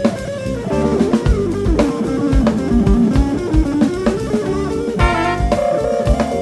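Live band playing an instrumental passage: guitar lines with pitch bends over a steady drum-kit beat.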